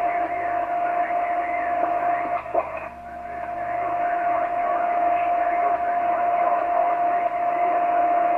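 Shortwave radio reception on the 15-metre amateur band through an ICOM IC-R8500 receiver in single-sideband mode: a steady hiss of static with a constant whistle tone over it and a weak, wavering transmission underneath. The signal dips and fades out about two and a half seconds in, then comes back up.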